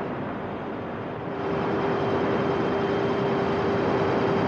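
Sound effect of a submarine's engine running underwater: a steady rushing drone, with a steady hum coming in about a second and a half in.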